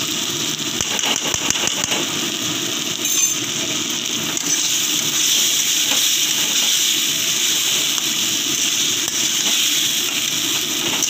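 Masala paste frying in mustard oil in a kadai, a steady sizzle, while a metal spatula stirs it, with scraping clicks against the pan in the first couple of seconds. This is the kosha stage, the paste being fried down slowly.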